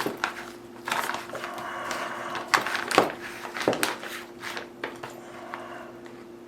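A spoon stirring a rehydrated freeze-dried meal in its resealable pouch: irregular scraping and crinkling with several sharp clicks, dying down near the end.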